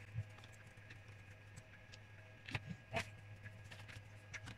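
Faint scattered ticks and light rustling from a sheet of paper being slid under a 3D printer's nozzle during bed levelling, with a couple of slightly louder clicks past the middle, over a steady low hum.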